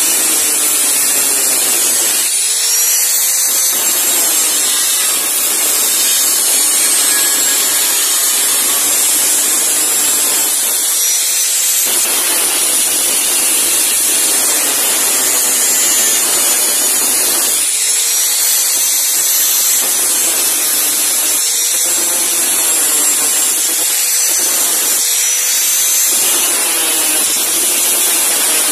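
Angle grinder with a thin cutting disc cutting through a steel machete blade: a loud, steady grinding hiss with a high whine. Several times the motor's pitch dips and then rises as it speeds back up in the cut.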